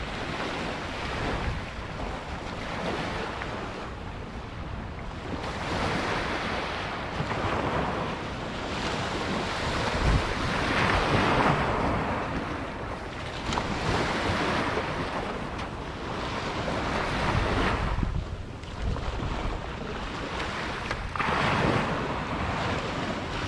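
Small waves washing up on a sandy beach, swelling and fading every few seconds, with wind on the microphone.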